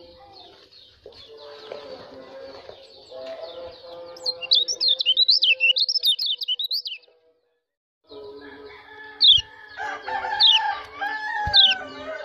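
A white-eye (pleci) giving sharp, high 'ciak' calls: a fast run of chirps partway through, then several single loud calls near the end, with lower bird or fowl calls beneath. The sound cuts out completely for about a second midway.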